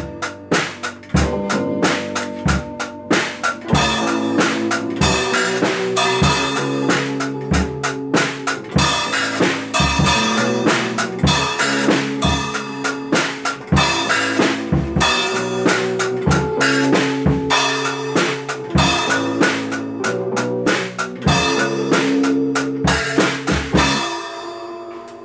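Music: a steady drum-kit beat over sustained pitched instrument notes, fading out near the end.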